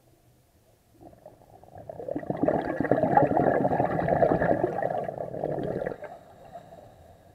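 Scuba diver's exhaled breath bubbling out of the regulator, heard underwater. It builds about a second in, stays loud for about four seconds, and stops about six seconds in.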